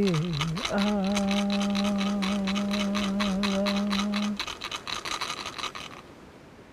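A singer holds a long wordless note with a hand rattle shaken rapidly underneath. The voice dips in pitch about half a second in, then holds steady until about four seconds in. The rattle carries on for about another second and a half before stopping.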